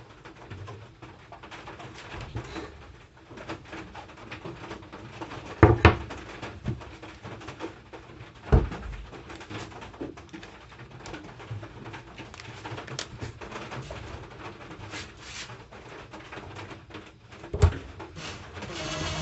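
Sharp knocks and clicks of tools being handled on a wooden worktop while a dowel-hole drill bit is fitted to a cordless drill: a double knock about six seconds in, another near nine seconds and one near the end, over a faint steady background.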